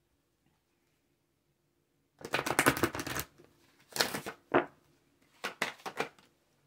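Tarot deck being riffle-shuffled by hand: after about two seconds of quiet, a long rapid rattle of cards riffling together, then a shorter cascade as the deck is bridged about four seconds in, and a few quick card flicks near the end.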